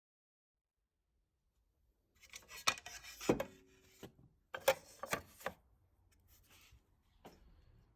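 Objects being handled: a string of sharp knocks and clatters with scraping and rubbing between them, starting about two seconds in, with one knock that rings briefly.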